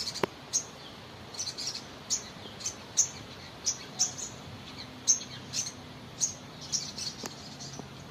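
Sogon bird giving short, sharp, high chirps, repeated every half second to a second, some in quick pairs or threes.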